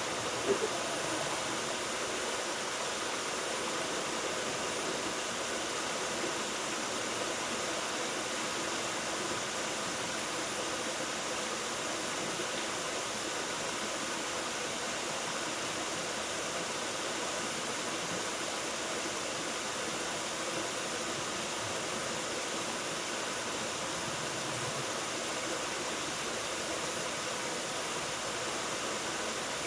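Waterfall's steady rush of falling water, an even hiss-like noise without change, with one brief knock about half a second in.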